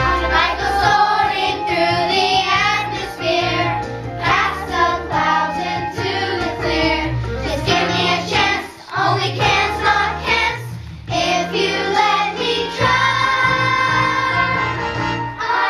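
Fifth-grade children's choir singing a song from a Christmas musical over instrumental accompaniment with a steady bass line.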